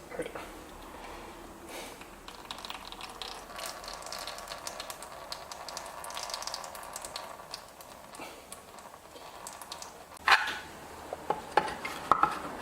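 Light mechanical clicking and rattling of hand tools working on a small mower engine, with a sharp knock about ten seconds in and a few more clicks near the end.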